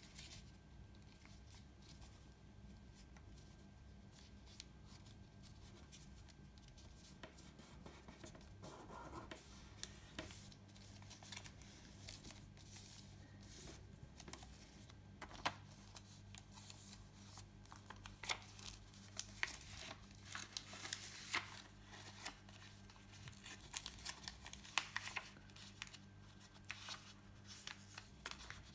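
A sheet of paper being folded and creased by hand. It rustles faintly at first, then from about ten seconds in gives many short, crisp crackles and rubs, over a low steady hum.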